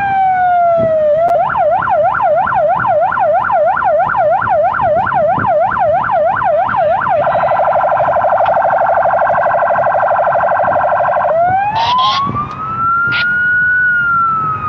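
Police patrol car electronic siren cycling through its tones: a slow falling wail, then a fast yelp of about three sweeps a second for some six seconds, then a very rapid warble for about four seconds, then a slow wail that rises and begins to fall again.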